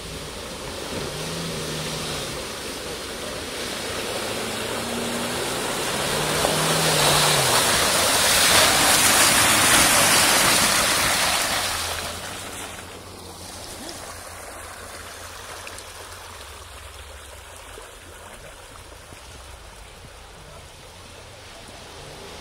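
Off-road 4x4 engine revving as its tyres churn through deep mud, a rushing spray of noise that swells to a peak and then drops off sharply about twelve seconds in.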